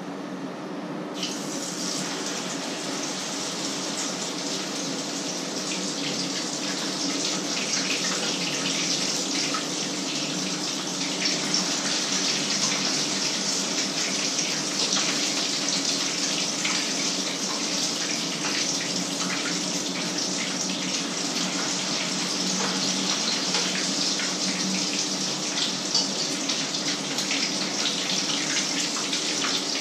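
Food sizzling and crackling as it fries in hot oil in a pan. The sizzle starts about a second in and grows steadily louder.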